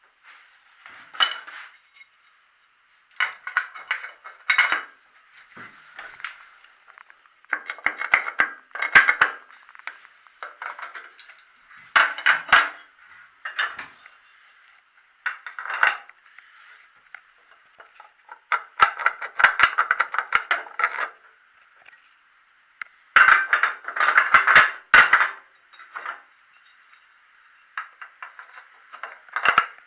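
Irregular bursts of metallic clinking and clattering, with short quiet gaps between them.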